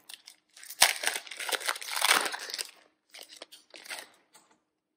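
Foil wrapper of a trading card pack crinkling as it is opened by hand, with a sharp snap about a second in. Lighter crinkles follow near the end.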